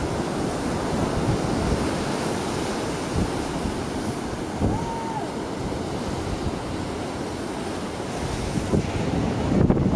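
Surf breaking and washing over a rocky shore, a steady rushing noise, with wind buffeting the microphone and gusting louder near the end.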